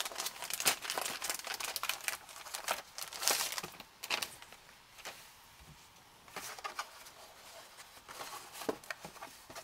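Plastic packaging crinkling and rustling as a folded cardboard ration tray is pulled from its bag and unfolded. The rustling is dense at first, eases off about halfway, then picks up again.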